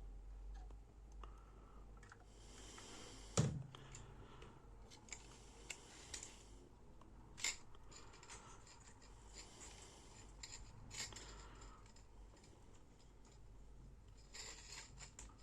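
Faint handling noises: scattered small clicks and short rustles, with one louder knock about three and a half seconds in.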